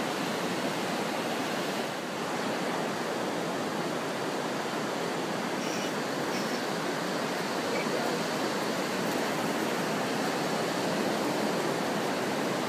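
Steady rush of running water, an even hiss without breaks or changes.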